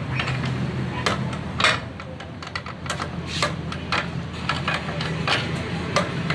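Irregular metallic clicks and knocks of hand tools on the Honda CD 70's rear shock absorber and swingarm mountings as the suspension is refitted, over a low steady hum.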